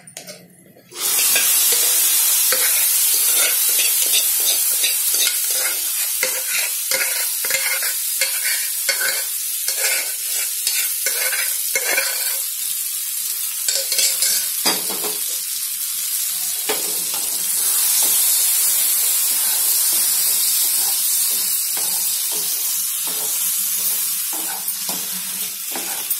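Hot tempering oil sizzles loudly as thick cooked sorrel and red gram dal goes into it about a second in. A wooden spoon stirs and scrapes the dal through the sizzle in a non-stick pan.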